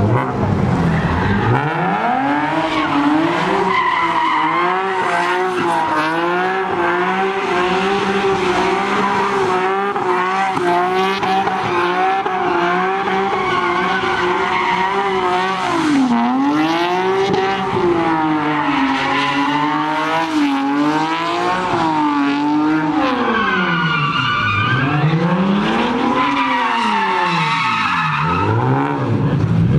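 Nissan 370Z's V6 held at high revs while the car does donuts, rear tyres screeching as they spin. The revs stay high and steady for the first half, dip once about halfway, then drop and climb again several times toward the end.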